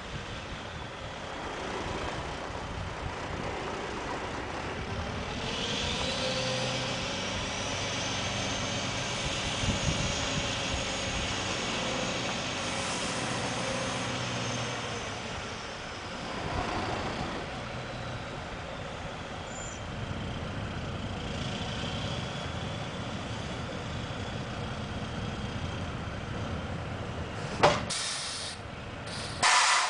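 Grain truck's engine running steadily, with a high whine that rises, holds and falls away over about fifteen seconds, then two short, sharp air-brake hisses near the end.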